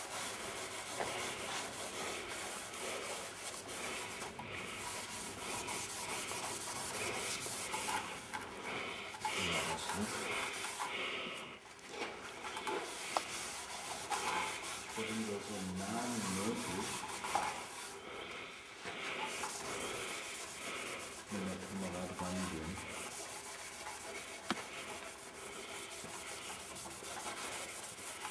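A hand-held abrasive pad is rubbed back and forth over the curved sheet metal of a metal sculpture, making a continuous scrubbing hiss.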